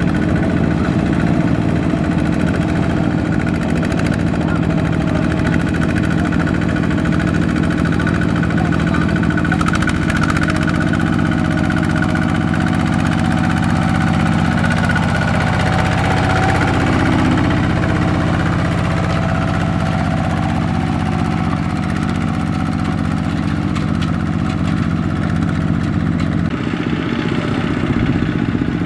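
Two-wheel walking tractor's single-cylinder diesel engine running steadily, pulling a trailer loaded with rice sacks through deep mud.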